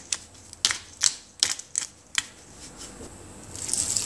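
Six sharp clicks or taps, spaced about half a second apart. Near the end a spoon starts stirring the wet minced beef and potato kebab mixture in a bowl, a rising scraping, squelching noise.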